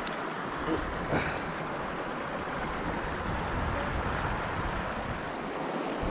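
River water rushing steadily over rocks and a small ledge in shallow riffles.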